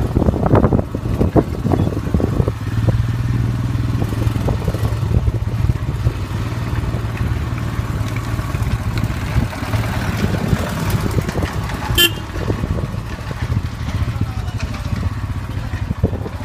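Royal Enfield Himalayan's single-cylinder engine running steadily at low speed as the motorcycle rides over a rough, rocky road, with irregular knocks near the start. One brief, sharp sound cuts in about twelve seconds in.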